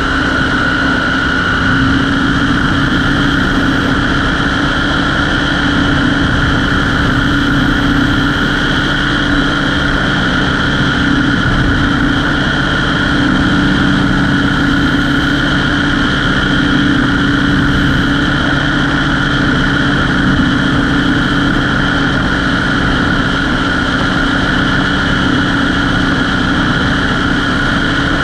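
Propeller-driven light aircraft engine running steadily at constant power in flight, a loud even drone with a fixed pitch and a slight shift in tone about two seconds in.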